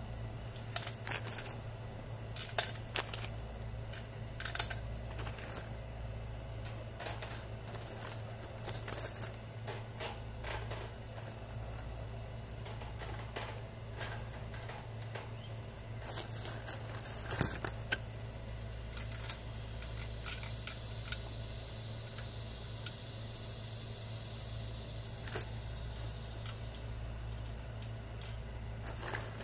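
Hex-head roofing screws clinking against a welded wire mesh grid and one another as they are set into its squares by hand: scattered, irregular metallic clicks over a steady low hum.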